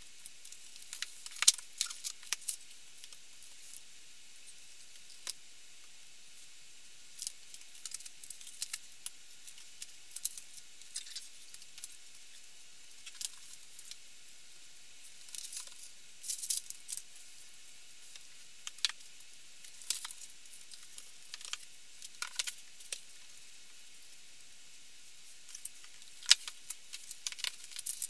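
Scattered light taps, clicks and rustles of books, magazines and papers being picked up and stacked on a wooden dresser, over a steady faint hiss. The clicks come in clusters, the sharpest about a second and a half in and again near the end.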